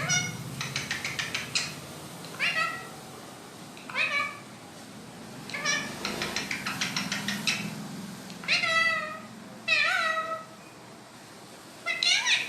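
A pet parrot giving a series of about seven short meow-like cries, each bending in pitch, with runs of rapid clicking after some of them.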